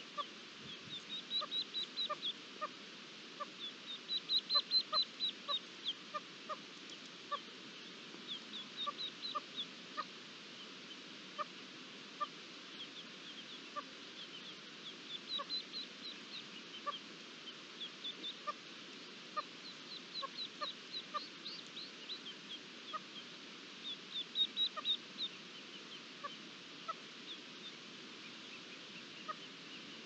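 Red-legged partridge hen and chicks calling: short low clucks repeated every second or so, with recurring bursts of rapid high-pitched calls, the loudest a few seconds in.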